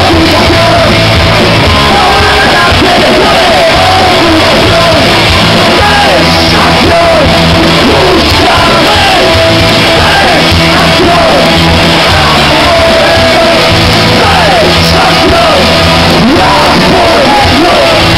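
Rock band playing live and loud, with a singer yelling the vocals over the band.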